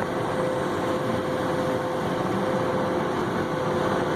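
Tractor engine running steadily, heard from inside the cab, with a steady tone over the engine noise.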